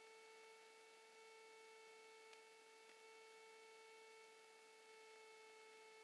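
Near silence: only a faint, steady electrical whine with a ladder of overtones over light hiss, typical of an aircraft intercom recording feed.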